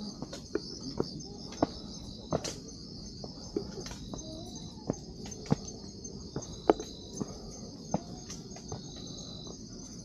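Steady high chorus of crickets and other night insects, with irregular sharp taps scattered through it.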